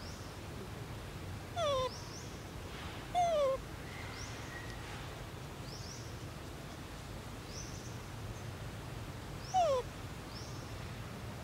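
Young macaque giving short, falling whimpering coos: two close together near the start and one near the end. Faint high chirps repeat in the background.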